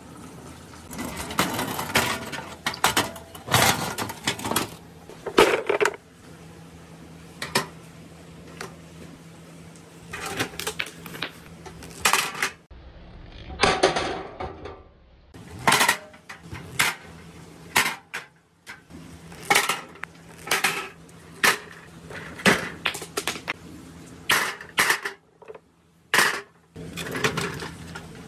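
Plastic Dragon Ball balls rolling down a marble run and dropping one after another into the bed of a tin toy truck: an irregular string of sharp clattering knocks as they hit the metal and each other.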